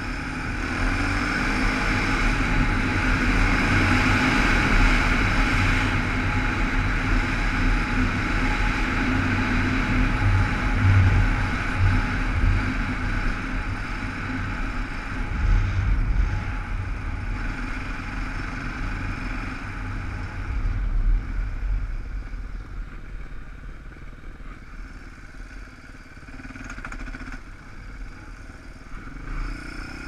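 Motorcycle running on a dirt road, heard from a helmet-mounted camera, with wind noise and road rumble over the engine. The sound is loudest early on and eases off in the last third as the bike slows.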